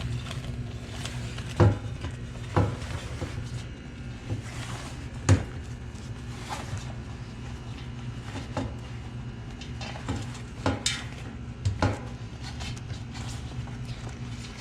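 Scattered knocks and clattering from working an inner tube out of a bicycle tyre by hand, over a steady low hum.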